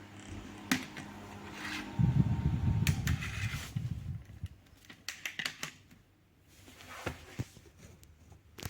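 Scattered sharp clicks and knocks of handling, with a louder low rumble and bumping for about two seconds starting around two seconds in. A faint steady hum fades out around the same point.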